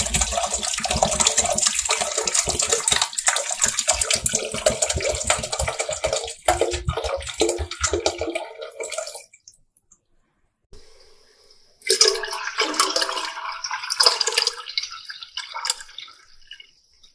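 Liquid pouring and splashing, with many small crackles and clicks, in two separate takes: a long pour that stops at about nine seconds, a brief silence, then a shorter pour that fades out.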